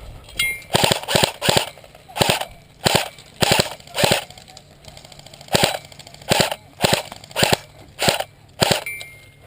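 Airsoft gun fired in single shots, about a dozen sharp cracks roughly 0.6 s apart, with a pause of about a second and a half in the middle.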